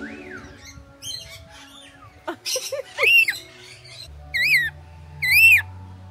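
A bird calling: loud, squawky calls, each rising then falling in pitch, three in the second half with about a second between them, after a few shorter, rougher sounds.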